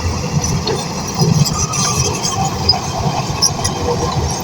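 Shantui crawler bulldozer running under load, its diesel engine rumbling steadily while the steel tracks clank and squeak.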